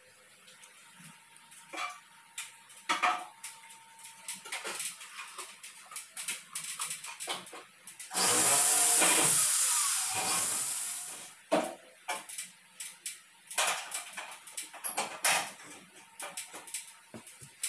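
A corded electric drill runs for about three seconds against an aluminum framing post, its pitch rising as it starts and falling as it stops. Before and after it come scattered light knocks and taps as the aluminum tubing is handled.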